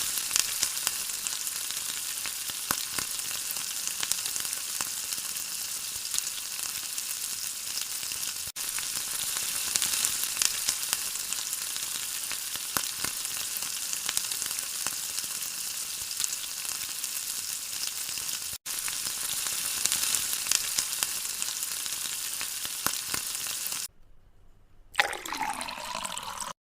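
Food frying in hot oil in a pot, sizzling steadily, with the repeated clicks and scrapes of a spoon stirring it. Near the end the sizzle cuts off, and a short sound falling in pitch follows.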